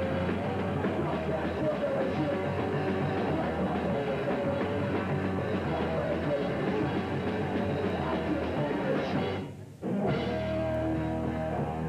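Hardcore punk band playing live, with electric guitar. About nine and a half seconds in, the sound drops out for about half a second, then the band comes back in with longer held notes.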